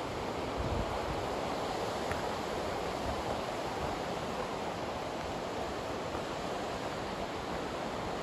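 Barnes Creek, a rain-fed mountain creek, rushing below the trail: a steady, even wash of running water.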